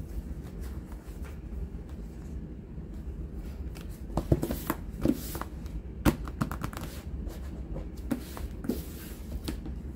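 Cardboard album packaging and photocards being handled on a table: papery slides and rustles with sharp taps and clicks as the pieces are picked up and set down, including a quick run of clicks about six seconds in.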